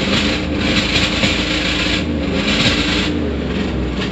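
Jeep Grand Cherokee ZJ's 5.2 V8 running rough under load in uneven surges, the sound of an engine dying with only a few of its eight cylinders still working.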